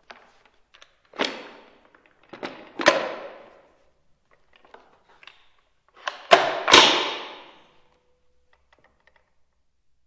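Ruger 10/22 rifle being reloaded: sharp metallic clacks and clicks of the magazine and bolt. The loudest clacks come about three seconds in and again a little after six seconds, with small clicks between. Each clack rings off the hard tiled walls of a small bathroom.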